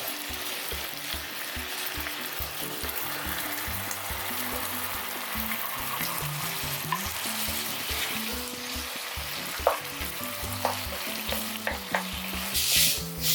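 Food sizzling in a hot pan while it is stirred, with a steady frying hiss and a few sharp taps in the second half. Quiet background music runs underneath.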